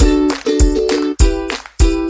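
Upbeat background music with a steady beat and plucked-string chords.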